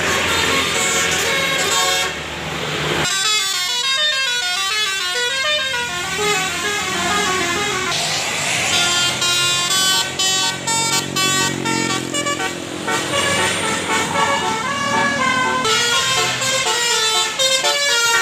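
Tour bus's roof-mounted Basuri telolet air horn playing a fast melody of quickly changing notes. The bus's own road and engine noise comes first, for about three seconds, before the tune starts.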